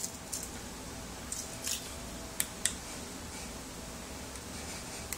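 Quiet room tone with a faint steady hum, broken by several soft clicks in the first three seconds, the two sharpest close together around two and a half seconds in.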